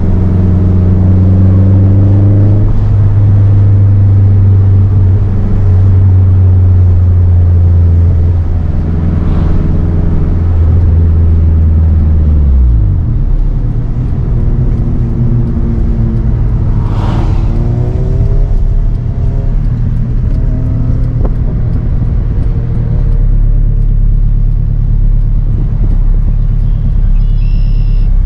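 Turbocharged K20 four-cylinder engine of an Acura RSX Type-S running under way: a steady low drone that drops in pitch about twelve seconds in as the revs fall, with short rises in engine note near the start and again around seventeen seconds, where a brief rush of noise passes.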